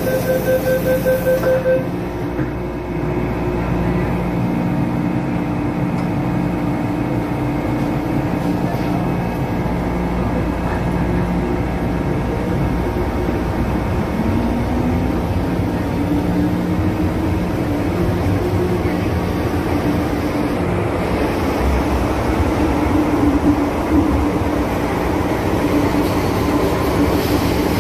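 Rapid, evenly spaced door-closing warning beeps stop about two seconds in; then an MTR Tsuen Wan line M-Train (Phase 2A) pulls out, its car rumbling steadily, with a motor whine that rises in pitch as the train gathers speed.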